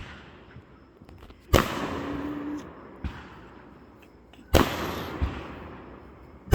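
Aerial firework shells bursting: two loud booms about three seconds apart, each trailing off in a long rumbling echo, with smaller sharp pops between them and another boom at the very end.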